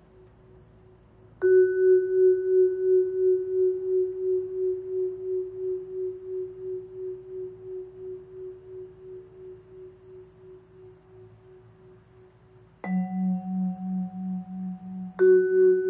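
Musser vibraphone with its motor vibrato on, played with soft mallets. A single note is struck about a second and a half in and rings with a steady pulsing waver, slowly dying away. Near the end a lower note is struck, then the first note again.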